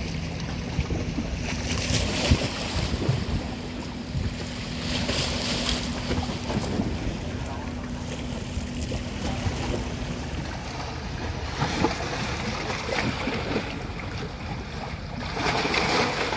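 Choppy sea waves washing and breaking in surges, with wind buffeting the microphone. Near the end the loudest surge comes as a wave splashes over rocks at the water's edge. A low steady hum runs underneath and stops about two-thirds of the way through.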